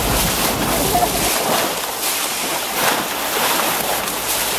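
Rushing water and spray of a dive boat's bow wave as the boat moves at speed, with wind buffeting the microphone.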